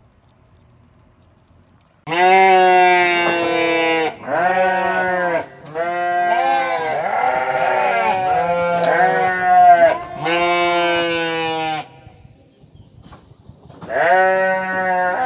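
Sheep bleating: a series of long, drawn-out bleats, several overlapping in the middle as if from more than one animal, with a short pause before a last bleat near the end.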